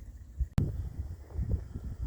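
Wind buffeting the microphone as an uneven low rumble, with one sharp click about half a second in.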